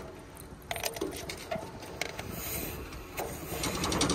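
Plastic locking filler cap on an excavator's tank being unlocked with a key and twisted off, clicking as it turns, with a metal keychain jangling against it; the clicking comes faster toward the end.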